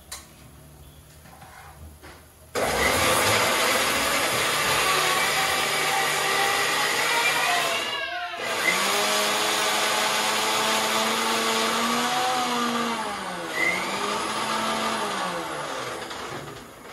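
Electric grinder running, grinding soaked red chillies with a little water into a paste. It starts about two and a half seconds in, stops for a moment near the middle and restarts, with its motor pitch rising and falling as the load shifts, and it stops just before the end.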